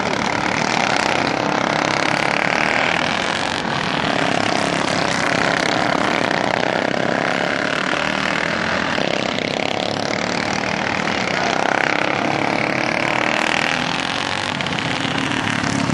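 Racing lawn mower engines running hard on a dirt track, swelling and fading over and over as the mowers go past.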